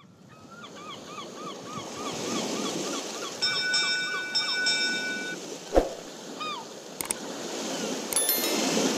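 Intro sound effects: ocean surf washing, with a run of quick repeated chirps over the first few seconds and a ringing chime held for about two seconds. A thud comes about six seconds in, and near the end there are sharp mouse-click effects with a short ding.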